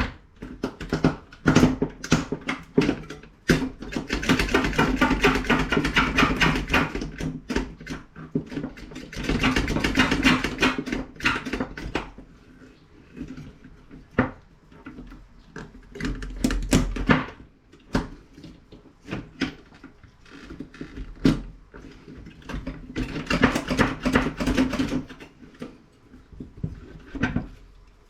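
Hand snips cutting and prying parts off a CRT monitor's circuit board: a string of sharp clicks and snaps, with longer stretches of crunching and rattling as pieces are worked loose.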